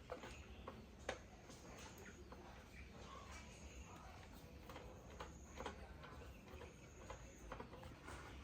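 Near silence with faint, scattered light clicks and taps over a low steady hum; one click about a second in is sharper than the rest.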